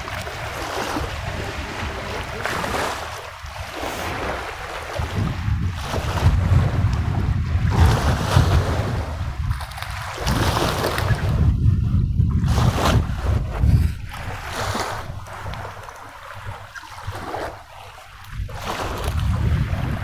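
Wind buffeting the microphone in uneven gusts, a low rumble over a steady rushing noise of wind and river water at the water's edge.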